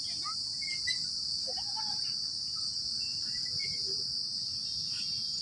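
Steady, high-pitched drone of an insect chorus, unbroken throughout, with faint scattered chirps over it.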